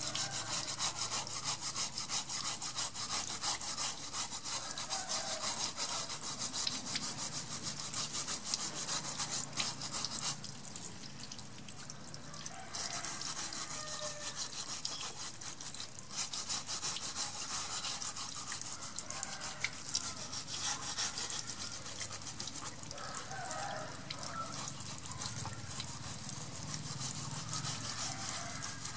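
A sponge scrubbing a small turtle's wet shell in quick back-and-forth strokes, with water trickling over it. The scrubbing pauses for about two seconds near the middle, then resumes.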